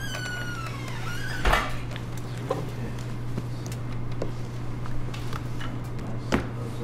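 Knocks and thumps of a stack of hardbound portfolio folders being squared up and set down on a wooden desk: a sharp thump about a second and a half in, lighter knocks after it, and another sharp thump near the end. A short falling squeak fades out about a second in, and a steady low hum runs underneath.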